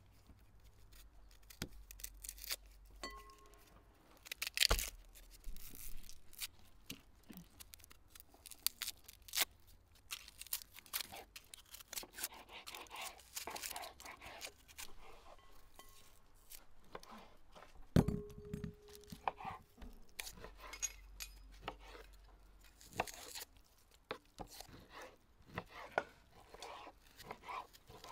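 Dry onion skin being peeled and scraped off with a paring knife: crackling tearing and small knife scrapes, with a few knocks, the loudest about 18 seconds in, ringing briefly.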